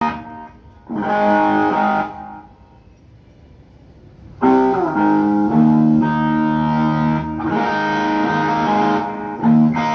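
Amplified electric guitar being checked at a sound check, playing ringing chords: a short one about a second in, then after a pause longer sustained chords from about four and a half seconds in that open with a slide down in pitch, and a brief chord near the end.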